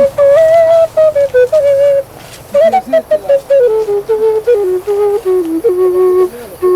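A bamboo flute playing a slow melody of held, stepping notes, with a short break about two seconds in; after the break the line wanders gradually lower in pitch.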